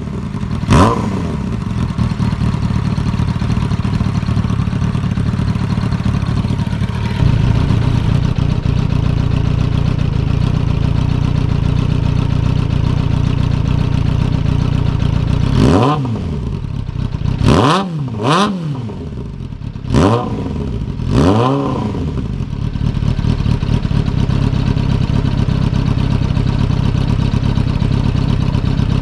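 Suzuki Bandit 600's inline-four engine running through a GP-style aftermarket exhaust with its baffle fitted, revved by hand on the stand. It idles steadily, with a quick rev about a second in and about five sharp throttle blips in the middle, each rising and falling back to idle.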